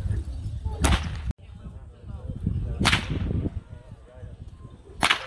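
A long whip being swung and cracked: three sharp, loud cracks about two seconds apart.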